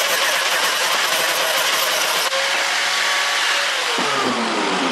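Angle grinder with a flap disc grinding steel box-section tube, a loud steady shriek of abrasive on metal. About four seconds in, the grinder comes off the work and its pitch falls as it winds down.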